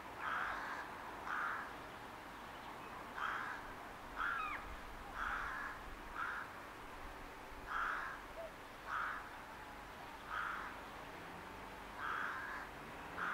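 Rook cawing repeatedly: short caws, mostly in pairs about a second apart, with a pause of one to two seconds between pairs, about ten caws in all.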